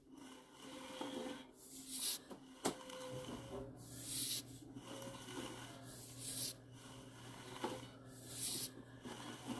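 Faint breathing close to the microphone, a hissy breath about every two seconds, over a low steady hum that comes in about three seconds in.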